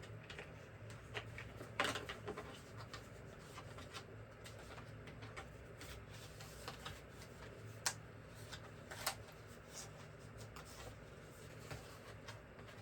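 Faint handling of a screwdriver set: screwdrivers and their plastic holder clicking and rubbing as they are picked up and fitted in, with a few sharper clicks about two, eight and nine seconds in, over a low steady hum.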